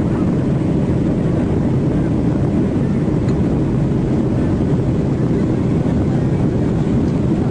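Airliner cabin noise: the engines and airflow heard from inside the cabin as a steady low rumble while the plane moves along the ground.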